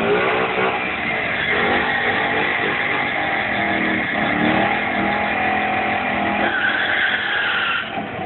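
Ford Mustang 5.0 V8 revving hard through a burnout, its rear tyres spinning and screeching. The screech swells louder and higher about six and a half seconds in, then cuts off near the end.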